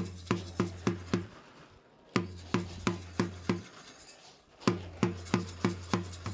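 Drum beats in runs of four or five strikes, about three a second, with a low ringing tone under each run and short pauses between runs.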